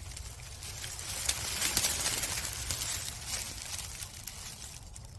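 Rustling of dry leaves and brush with many small crackles and clicks, loudest about two seconds in.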